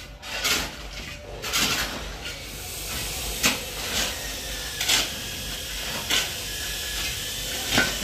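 Steel shovel scraping and digging into loose soil and gravelly rubble fill, a gritty scrape with each stroke, repeated irregularly about once a second.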